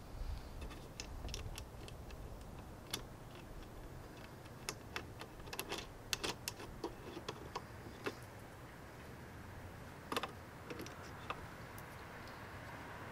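Scattered small clicks and taps of hand-held hardware being handled and fitted onto a plastic kayak anchor-mount bracket, with a quick run of clicks around the middle and a sharper click near the end.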